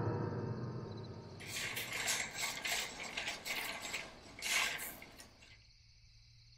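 A gong hit dying away, followed by a run of short, irregular rattling clicks, the loudest near the end. It then drops to near silence.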